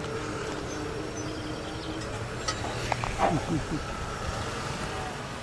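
Railroad crossing gate mechanism humming as the gate arm rises to vertical, the hum stopping about two seconds in. A couple of clicks follow, then a brief cluster of falling squeaks.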